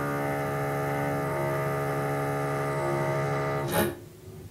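A steady droning hum of several held tones. It cuts off just under four seconds in with a short, loud crackle, leaving faint room tone.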